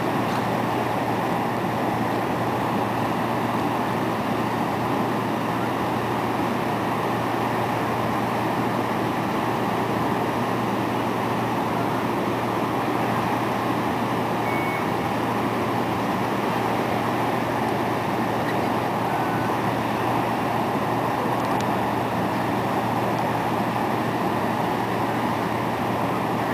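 A vehicle's engine and road noise: a steady, even drone with a constant low hum underneath.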